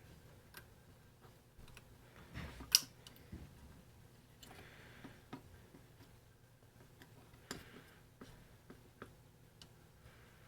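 Scattered light clicks and taps of small tools and parts being handled at a workbench, with one sharp click about three seconds in and a few soft rustles, over a faint low hum.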